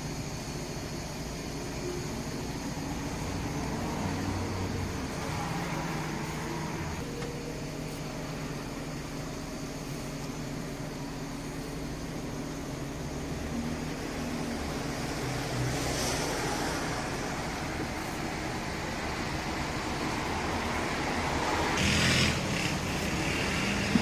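Mercedes-Benz O345K articulated bus's OM447hLA diesel engine running, with a blown exhaust, its pitch drifting slowly up and down. Two short hissing bursts come in the second half, the louder one near the end.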